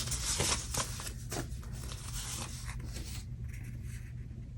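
Sticker sheets and paper crinkling and rustling as they are handled, with many sharp little clicks, for about three seconds before it quietens. A steady low rumble runs underneath, from the thunderstorm ambience.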